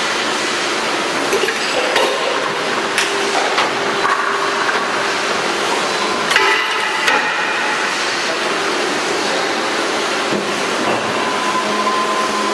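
Injection moulding machine running with a steady mechanical noise while a crate mould opens and closes. Several sharp metallic clanks and knocks come as the mould parts and the crate is pushed free by the mould's corner hooks, the loudest about six seconds in. A steady whine comes in near the end as the mould closes again.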